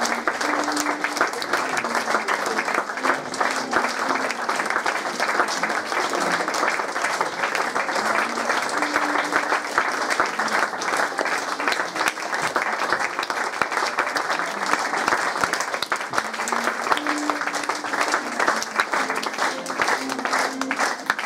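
Theatre audience applauding, a dense, steady clapping.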